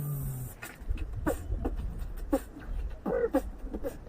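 A man beatboxing: a brief held vocal note, then a string of short, sharp percussive mouth sounds over a low rumble.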